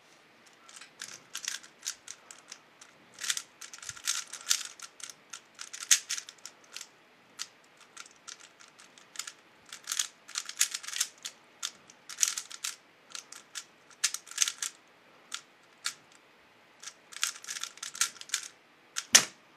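3x3 speedcube being turned fast during a solve: plastic layers clicking and clacking in irregular flurries, with short pauses between runs of turns.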